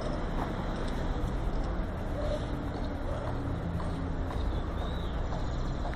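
Street traffic noise: a steady low vehicle engine rumble.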